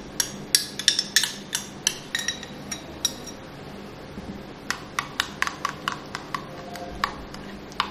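A metal spoon clinking against a glass bowl and a ceramic bowl as cream is scooped out and stirred into a green herb paste. There is a quick run of clinks for the first three seconds, a short lull, then another run from about five seconds in.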